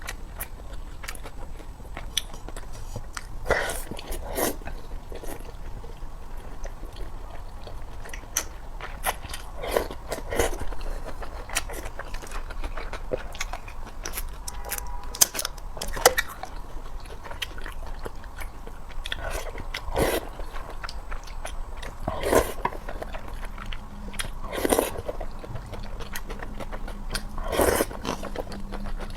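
A person eating close to the microphone: steady chewing and biting of food, with a louder bite or smack every few seconds.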